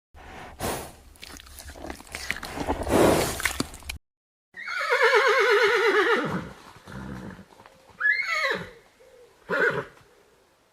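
A horse whinnying: one long, quavering neigh that falls in pitch, then two shorter calls. Before it comes about four seconds of noise from a separate recording, which cuts off suddenly.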